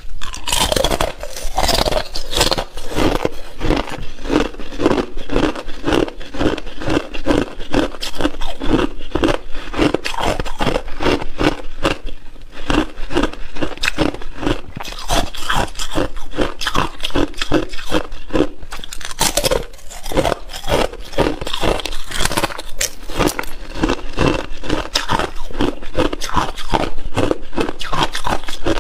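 Thin clear ice bitten and chewed close to a clip-on microphone: a steady run of crisp crunches, a few each second.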